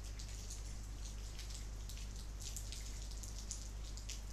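Faint, irregular light ticks and scratches of a stylus writing on a pen tablet, over a steady low electrical hum.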